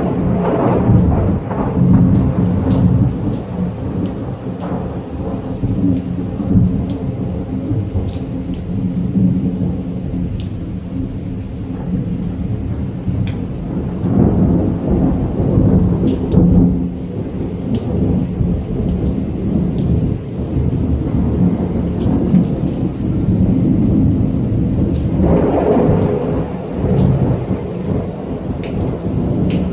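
Steady rain with rolling thunder rumbling throughout, swelling louder at the start, about halfway through and again near the end, with scattered sharp clicks on top.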